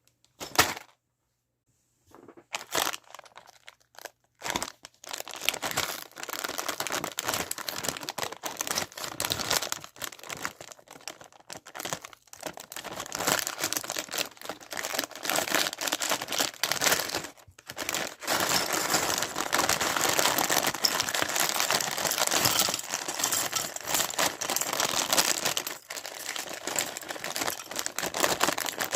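Lego set packaging being opened and handled: plastic bags crinkling and being torn open, almost without pause after the first few seconds. A sharp click comes just after the start.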